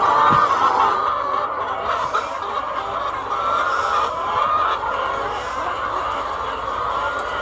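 A large flock of layer hens clucking and calling all at once, a steady chorus of many overlapping calls.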